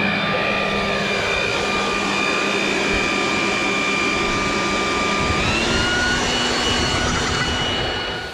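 Electric leaf blower running, a steady whine over a rush of air. About five seconds in, its pitch steps up as the motor speeds up, and the sound cuts off near the end.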